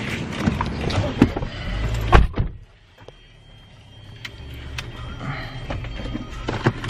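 A car door is pulled shut with one heavy thump about two seconds in, and the outside noise cuts off. Small clicks and rustling follow in the quiet car cabin.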